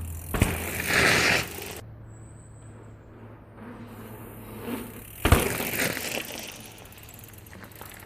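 Riding sounds from a mountain bike on a city ride: two sharp knocks about five seconds apart, each followed by a rush of noise lasting a second or two.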